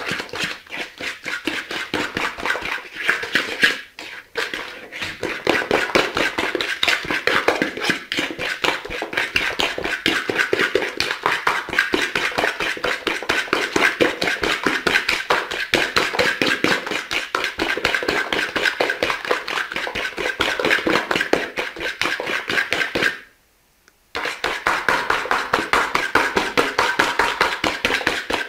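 Eggs and sugar beaten by hand with a whisk in a bowl: fast, steady tapping strokes against the bowl. They stop for under a second near the end, then carry on.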